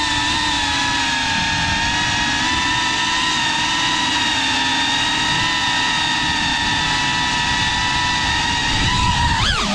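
An FPV quadcopter's brushless motors whine at a fairly steady pitch, wavering slightly. Near the end the pitch rises sharply and falls back.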